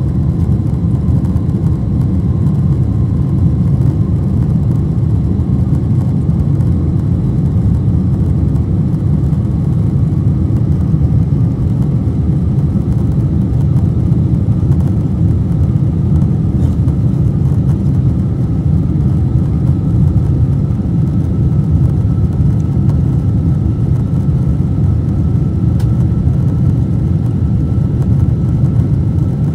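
Steady cabin noise of a Boeing 747-400 climbing out after takeoff: a deep, even rumble of the engines and airflow, with a faint high tone that creeps slowly upward in pitch.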